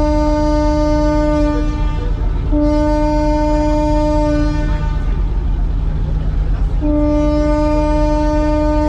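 Ship's horn sounding three long blasts at one steady pitch: the first ends about two seconds in, the second runs from about two and a half to nearly five seconds, and the third starts near seven seconds. A steady low engine rumble runs underneath.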